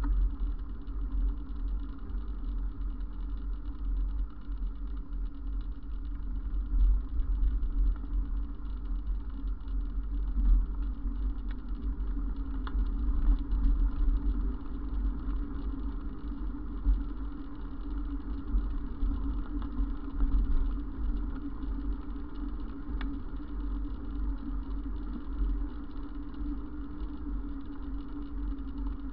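Wind buffeting and road rumble on a camera mounted on a moving bicycle, with a steady low hum, and swells every few seconds as cars pass on the road.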